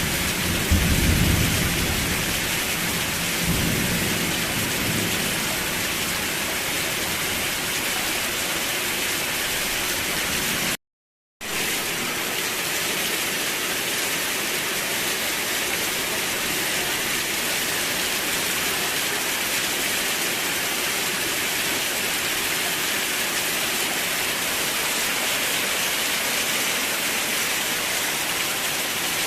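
Steady heavy rain, with a low rumble of thunder in the first few seconds. About eleven seconds in, the sound cuts out completely for about half a second, then the rain carries on.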